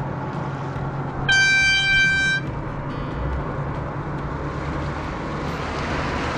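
A horn blows once, a steady tone about a second long, followed by a much fainter tone; underneath runs the steady low hum of an idling outboard motor with wind and water noise.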